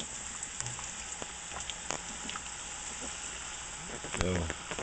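Sopapilla dough deep-frying in hot oil in a pan: a steady sizzle with scattered pops. A brief voice-like sound near the end.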